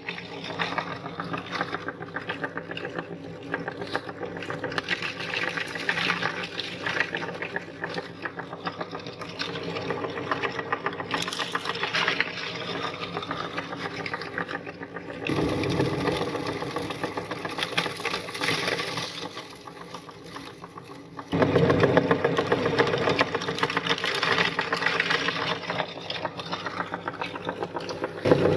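Electric meat grinder running while grinding Mango Bite hard candies: a steady motor hum with fast rattling. It grows louder about halfway through and again about three-quarters through, as the load changes.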